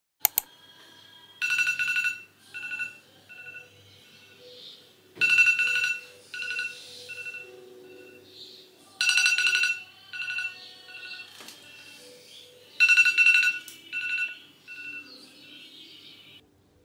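Smartphone sounding a repeating chime, a loud burst about every four seconds, each followed by shorter repeats that fade away.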